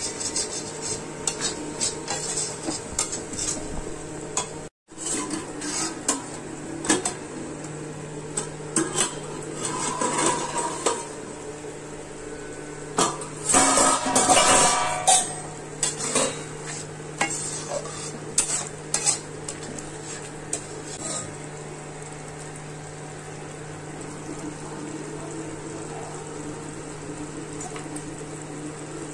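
Steel spatula stirring and scraping prawn masala in a metal pan: repeated clattering strokes against the pan over the sizzling masala, with a louder stretch about halfway through. Later the strokes stop and only a steady sizzle remains.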